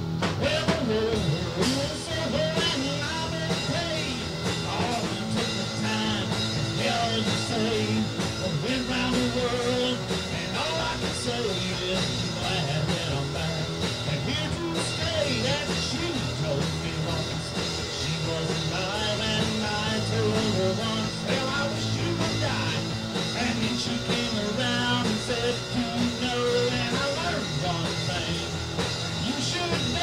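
Background music: a rock song with a singing voice.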